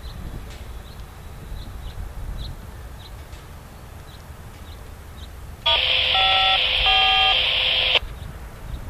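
About two seconds of loud electronic beeping tones over a hiss, several pitches changing in steps, starting abruptly and cutting off sharply.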